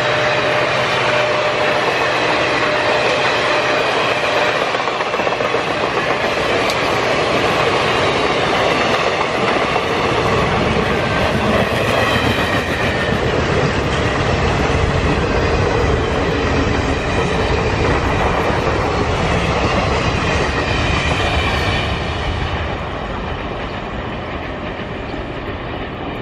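Long express train's passenger coaches running past at speed, their wheels rattling over the rails in a continuous loud rumble. The low rumble grows heavier about a third of the way in, then the sound fades as the last coaches move away.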